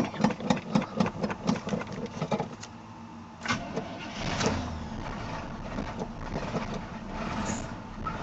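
1986 Chevy Silverado's 305 four-barrel V8 cranking on the starter with an even chug about three times a second, nearly out of gas after sitting three weeks. It catches about three and a half seconds in and settles into a steady cold idle. Near the end a high squeal from the alternator belt comes in.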